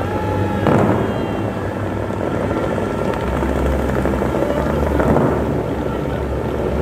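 Dubai Fountain's water jets rushing and crashing back onto the lake in a steady roar with a deep rumble, surging louder about a second in and again near the end.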